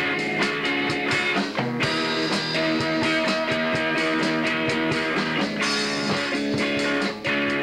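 A live rock band plays, with electric guitars ringing out sustained notes over a drum kit keeping a steady beat with cymbals.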